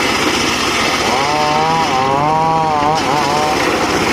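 Large circular saw cutting through a teak log, running loud and steady with a whine whose pitch sags and recovers a few times as the blade bites into the wood.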